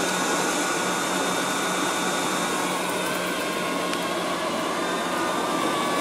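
Liectroux B6009 robot vacuum cleaner running over a rug, picking up fur: a steady whir from its suction motor with a constant low hum.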